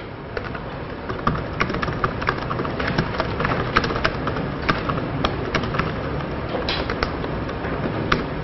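Computer keyboard typing: quick, irregular key clicks, several a second, over a steady background hiss that swells in the first couple of seconds.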